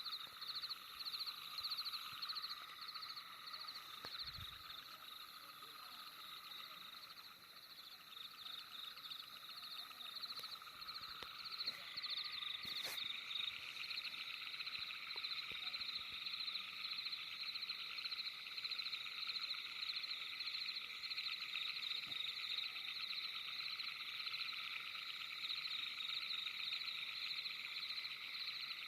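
Night chorus of frogs calling in fast pulsing trills, several layers at different pitches overlapping; a denser, louder layer of trills comes in about twelve seconds in.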